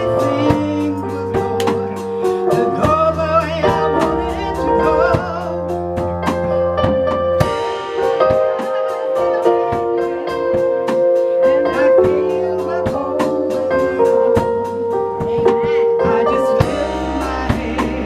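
Live gospel music: a woman singing lead with vibrato over held keyboard chords and drums keeping a steady beat.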